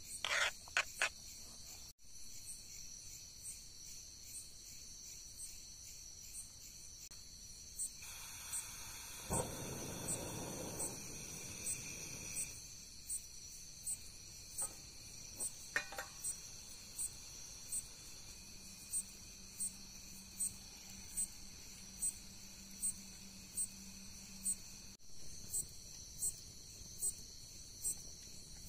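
Crickets chirping in an even rhythm, about one to two chirps a second, over a continuous high insect trill. Near the start a knife taps on a cutting board a few times. About a third of the way in, a portable butane stove burner lights and hisses for a few seconds.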